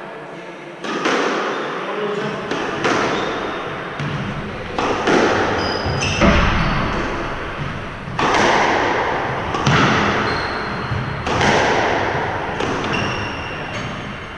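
Squash rally: a dozen or so sharp cracks of the ball off the rackets and walls, each ringing out in the court's hard echo, with short sneaker squeaks on the wooden floor. The hits stop near the end.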